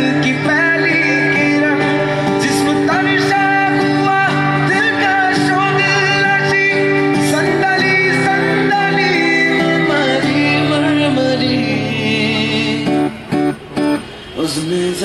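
A man singing and playing an acoustic guitar in a live acoustic set, amplified through a microphone. About thirteen seconds in, the music breaks into short pauses.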